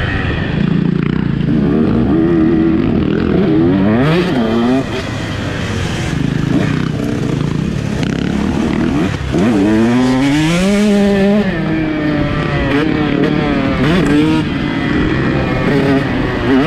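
KTM 150 SX two-stroke motocross bike ridden hard, its engine revving up in repeated rising climbs through the gears and dropping back when the throttle is shut. The loudness dips briefly about five and nine seconds in before the engine pulls again.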